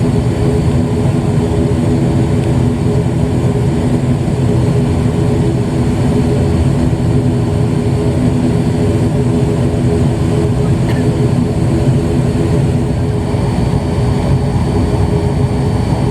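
Cabin drone of an ATR 72 twin turboprop's engines and propellers running steadily, a low rumble with a steady hum, as the airliner taxis after landing.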